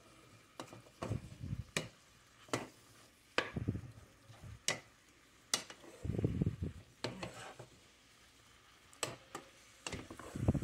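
Wooden spoon stirring and turning chunks of pork (chicharrón) in a hot stainless steel pot, with irregular clicks and knocks of the spoon against the pot and the pieces shuffling over one another.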